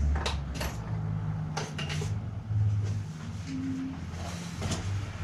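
A handful of light clicks and knocks, as of tools and small parts being handled and set down, over a low steady hum.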